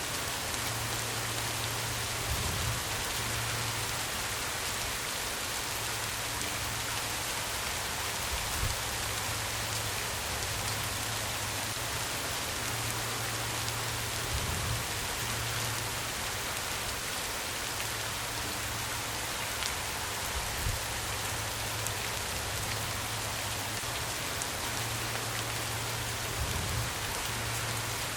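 Steady rain falling on a surface: an even hiss with scattered single drop hits standing out.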